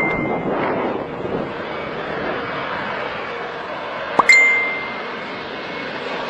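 A bell-like ding, each one set off by a short rising chirp, rings out and fades over about a second: one is dying away at the start and another sounds about four seconds in, over a steady background hiss.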